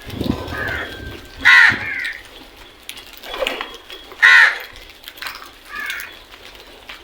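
Crows cawing: a series of short, harsh caws, the two loudest about a second and a half and four seconds in, with fainter caws between.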